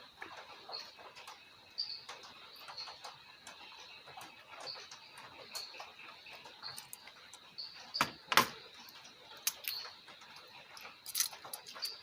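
Light clicks and taps of small tools and phone parts handled on a repair bench, scattered through, the loudest a pair about eight seconds in and another near the end, over a faint steady high whine.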